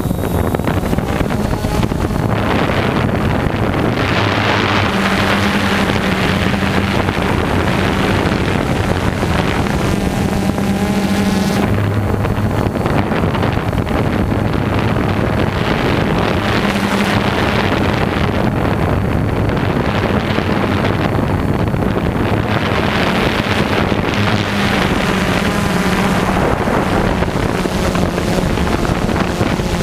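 DJI quadcopter drone's motors and propellers buzzing steadily overhead, the hum shifting slightly in pitch now and then as it manoeuvres, with wind noise on the microphone.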